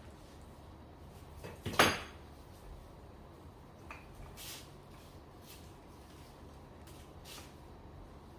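Kitchen utensils handled on a counter: one sharp clack about two seconds in, then a few faint clicks and taps.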